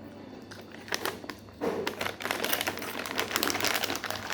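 Crispy chips being bitten and chewed close to the microphone: a few sharp crunches about a second in, then a dense run of crackling crunches from about a second and a half in.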